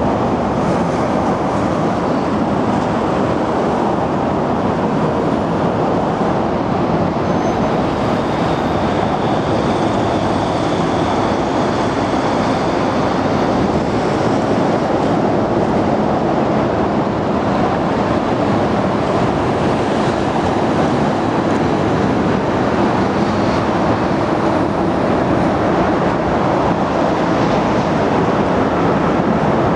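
Steady roar of traffic on an elevated expressway overhead, an even noise with no breaks.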